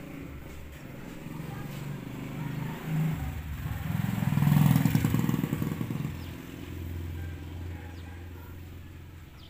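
A motor vehicle's engine passing by: a low rumble swells to its loudest about halfway through, then fades to a steady low hum.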